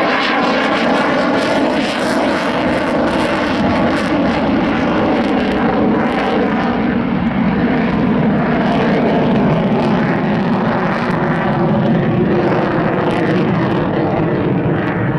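Belgian Air Force F-16's single jet engine running loud and steady through a slow, gear-down pass and the climb away. Several steady tones sit over the jet noise.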